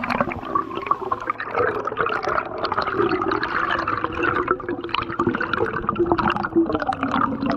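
Underwater gurgling and bubbling of air bubbles streaming past the camera, an uneven crackle of water noise.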